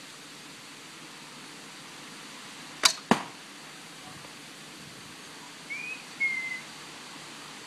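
A Boarrior Bows Sturgeon longbow is shot: a sharp snap as the string is released, then a second sharp crack about a third of a second later as the arrow strikes the target.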